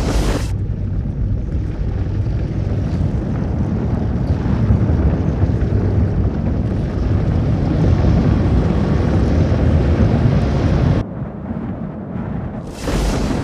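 Tornado sound effect: a loud, steady, deep rumble of wind that cuts off abruptly about eleven seconds in to a quieter rumble, followed by a sudden loud burst of noise near the end.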